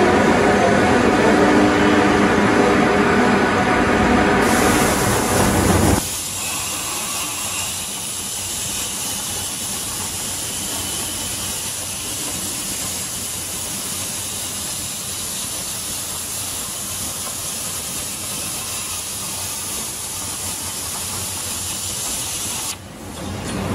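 Steady hiss of a cutting torch on a CNC plasma and oxy-fuel cutting machine. For the first six seconds the hiss sits under a louder, rougher rumble with some steady tones; then the rumble stops and the hiss runs on alone until it cuts off shortly before the end.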